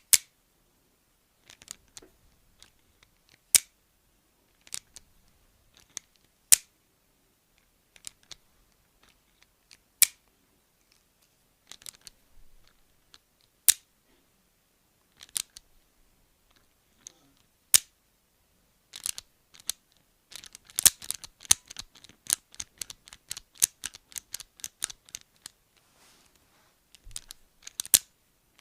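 Small metal hand tool, like pliers, opened and closed by hand so that it gives sharp metallic clicks. At first they come singly every second or two. About two-thirds of the way in they turn into a quick run of many clicks for several seconds, then a few single clicks again near the end.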